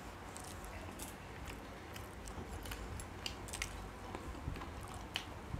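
Two people chewing gulab jamun, with scattered faint clicks and smacks throughout.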